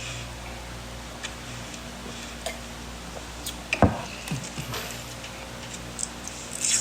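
Eating sounds: scattered small clicks and ticks of cutlery and food being handled, with one sharp knock about four seconds in and a quick cluster of crisp clicks near the end.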